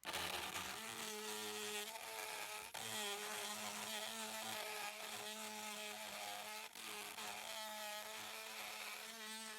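Harbor Freight Drill Master rotary tool's small electric motor running a bit into a hole in plastic, a buzzing whine whose pitch wavers with the load. The sound dips briefly about three and seven seconds in.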